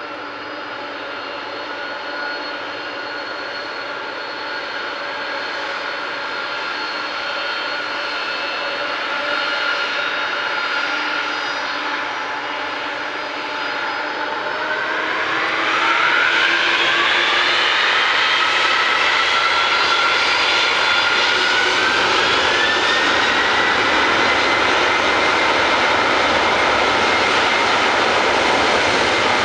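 A Boeing 747-400F's four jet engines run with a steady whine as the aircraft lines up. About halfway through they spool up to takeoff thrust: the whine sweeps up in pitch, the sound turns much louder, and it then holds loud and steady as the takeoff roll begins.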